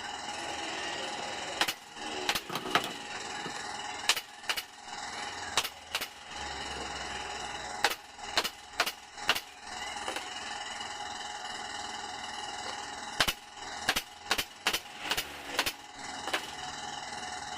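Sharp clicks or knocks, about twenty in all, coming in irregular clusters over a steady background hum.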